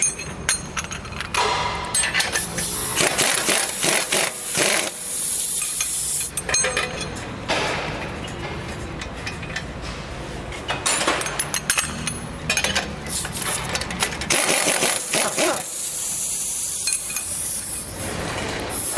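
Metal hand tools clinking and scraping on the suspension while a 22 mm wrench and socket loosen the two bolts that hold the front strut to the steering knuckle.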